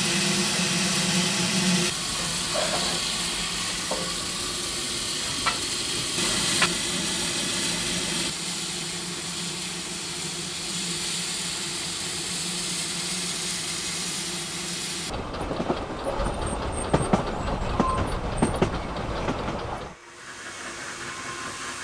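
Garratt steam locomotive No. 143 standing in a station and hissing steadily from its steam, with a few small clicks. It then gives way abruptly to the ride in a narrow-gauge carriage: a low rumble with sharp irregular clicks from the wheels on the track. This cuts off to a quieter background near the end.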